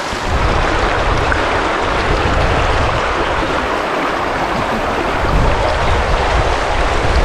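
Shallow, fast-flowing mountain river rushing and splashing over a stony bed, heard close to the water. The sound is a loud, steady, full rush.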